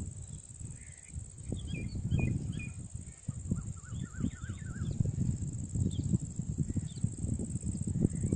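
Wind gusting against the microphone with an uneven low rumble. Birds chirp through it, with short wavy calls in small runs about 2 seconds in and again around 4 seconds, and single calls near the end.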